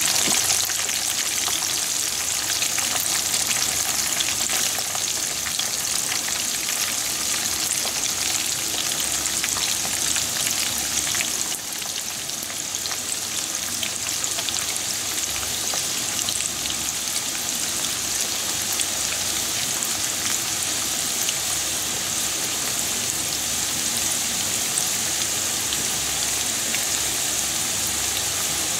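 Frozen french fries deep-frying in hot oil in a frying pan: a steady, dense sizzle with constant fine crackling.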